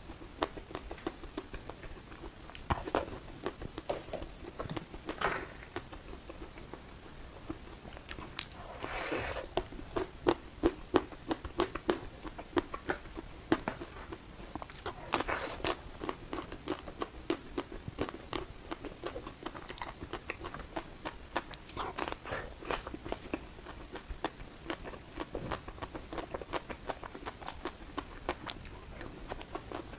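Close-miked biting and chewing of crispy ice cream: dense, irregular crunching and crackling, with heavier bursts of crunches every few seconds.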